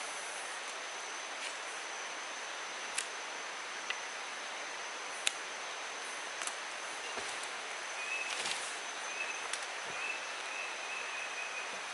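Tropical forest ambience: a steady high insect drone over a hiss, with a few sharp clicks and snaps scattered through. A thin chirping call comes in short broken pieces over the last four seconds.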